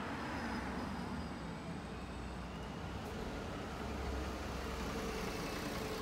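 A car and then a city bus driving past close by on a street, with tyre noise and engines running. A deeper engine rumble swells about four seconds in as the bus goes by.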